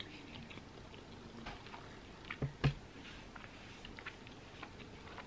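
A person chewing a mouthful of sandwich with soft, wet mouth noises and faint clicks, and two louder lip smacks or clicks about halfway through.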